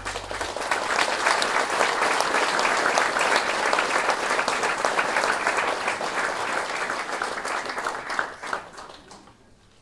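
The last of a held orchestral chord dies away at the start, and audience applause breaks out at once, holding steady for about eight seconds before fading out near the end.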